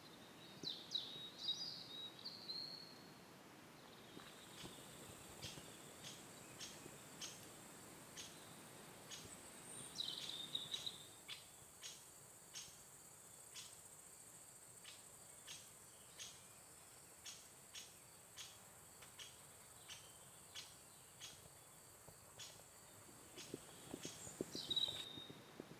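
Faint countryside ambience of bird song: short warbling phrases at the start, around ten seconds in and near the end. Between them a steady high hiss runs, with a short chirp repeating about one and a half times a second from about four seconds in until near the end.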